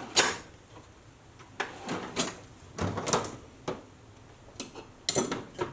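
Hand tools and small metal parts clinking and clattering as they are picked up and set down on a workbench: a string of separate knocks and rattles, with the loudest just after the start and again about five seconds in.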